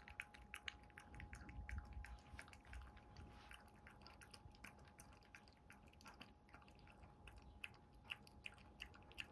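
Chihuahua licking and smacking up yogurt from a bowl: faint, quick, irregular wet clicks of tongue and mouth.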